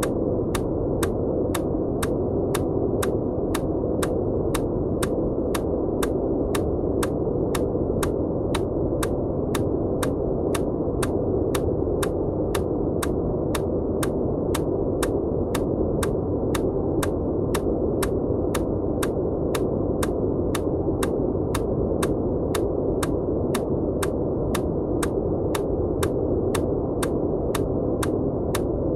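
Steady, muffled white-noise hiss, deep in tone, with short sharp EMDR bilateral-stimulation ticks laid over it at an even pace of about two a second.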